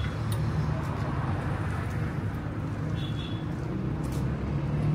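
Steady low rumble of road traffic, with a short high squeak about three seconds in.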